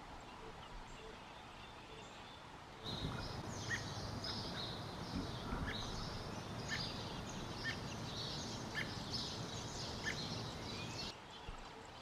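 American robin nestlings begging: a dense chorus of thin, high-pitched cheeping that starts suddenly about three seconds in and stops abruptly near the end, over a low rumble.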